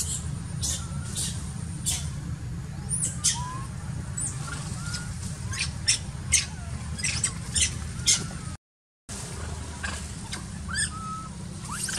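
Animal calls: many short, high squeaks and squawks at irregular intervals, a few gliding in pitch, over a steady low rumble. The sound cuts out completely for about half a second about two-thirds of the way through.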